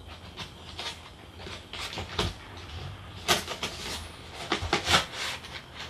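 Cardboard box being handled and opened: the flap and the white cardboard insert rubbing and sliding out, with scraping and rustling and a few sharper clicks of the card.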